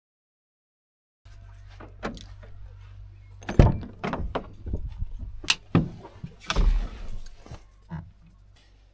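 A door and keys being handled: a run of clicks and knocks with two heavy thumps, about 3.5 s and 7 s in, over a steady low hum.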